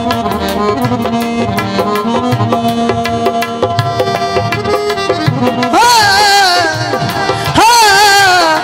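Live Punjabi folk music: a keyboard holding steady chords over fast hand-drum strokes, then a male singer comes in with a long, wavering held note about six seconds in and again near the end.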